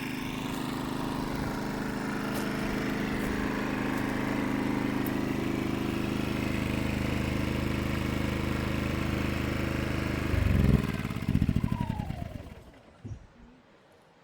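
A small engine running steadily, briefly louder near the end, then slowing in uneven pulses and stopping.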